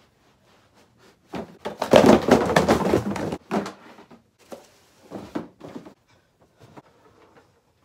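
Cardboard shoeboxes being handled and set down in piles, knocking and scraping against one another. The loudest stretch of clatter comes between about one and a half and three and a half seconds in, followed by a few lighter separate knocks.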